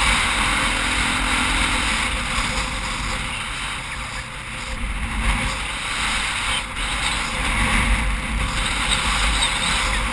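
KTM 450 dirt bike's single-cylinder four-stroke engine running under way on a gravel road, largely buried in a steady rush of wind noise over a helmet-mounted camera.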